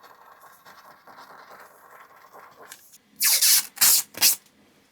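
Faint steady scraping of a blade shaving the seam off a 3D-printed PLA part, then, about three seconds in, three short loud hisses of spray or blown air, the first one longest.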